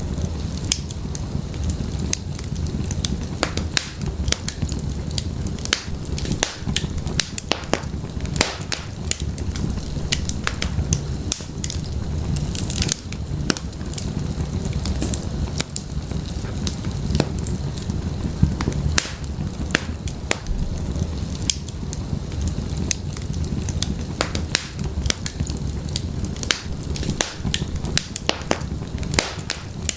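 Firewood burning in an open fireplace, crackling with frequent irregular sharp pops over a steady low rumble.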